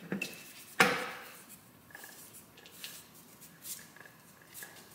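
A single sharp metal clunk about a second in as the Volvo XC70's automatic transmission comes free of the engine, followed by a few faint knocks and clicks as the transmission case is handled.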